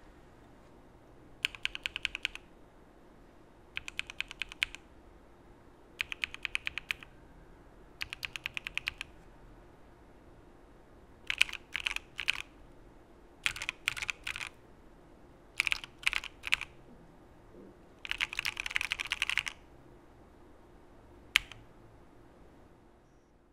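Mechanical keyboard typing on a Geonworks Frog with lubed Epsilon linear switches in an aluminum plate and CRP R4 keycaps. It opens with four short bursts of rapid keystrokes, then three groups of about three separate strokes, one longer burst, and a single stroke near the end.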